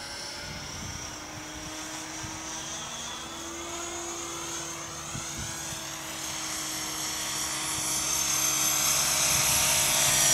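Electric RC helicopter (Align T-Rex 550E) in flight: a steady whine from the motor and rotor. It grows louder over the last few seconds as the helicopter comes closer.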